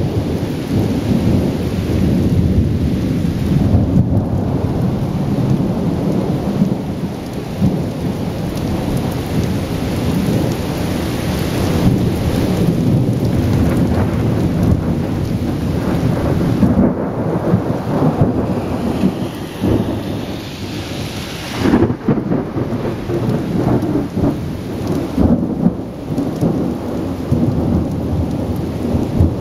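Thunderstorm: long, continuous rolling thunder over steady rain, with a few sharper cracks in the second half.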